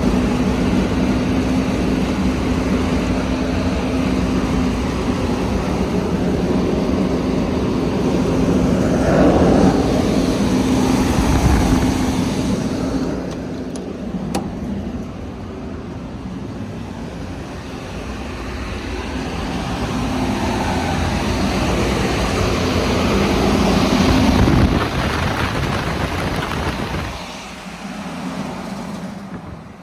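HVAC blower running with a steady low hum and rumble, the noise coming through a kitchen heat register. The blower wheel is out of balance, with a chunk broken off it.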